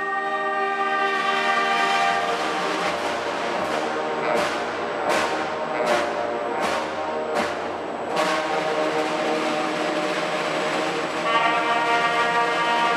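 Church bells ringing: long, overlapping ringing tones, with a run of sharp strikes about every three-quarters of a second through the middle.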